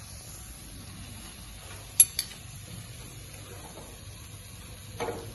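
Oil sizzling steadily under grated-potato patties frying in a frying pan, with two quick sharp clinks of cookware about two seconds in and a short knock near the end.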